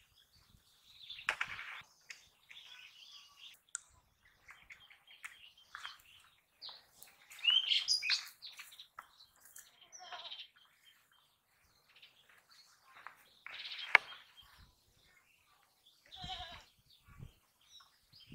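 Scattered short animal calls, birds chirping among them, coming and going in brief bouts, with the loudest bout a little before halfway. A single sharp click about three-quarters of the way through is the loudest sound.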